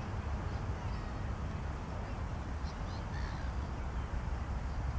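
Steady low rumble of wind on the microphone, with a few faint bird calls about halfway through.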